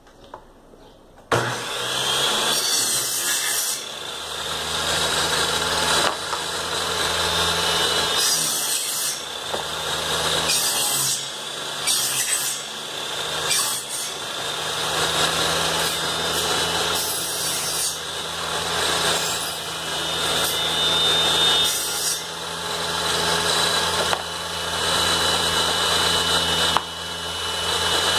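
Homemade benchtop table saw switched on about a second in, then running steadily with a low motor hum. Its blade cuts into a small pine piece again and again, the cutting noise rising and falling with each pass, as it makes several passes to cut a notch for a joint.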